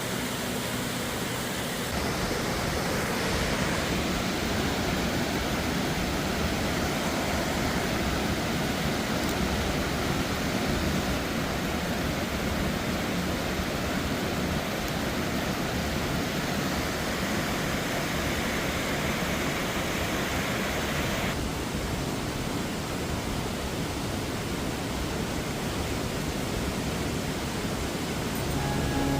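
Steady rushing water of Butte Creek Falls, a waterfall. Its tone shifts a little about two seconds in and again about twenty-one seconds in.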